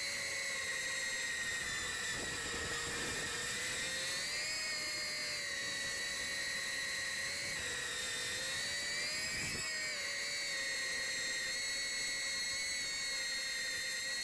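Small FPV quadcopter's brushless motors and propellers whining steadily, heard from the camera on board the drone; the pitch dips and rises a little a few times as the throttle changes.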